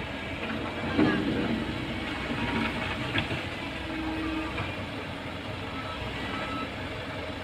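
Komatsu PC135 excavator's diesel engine running steadily, with a knock about a second in.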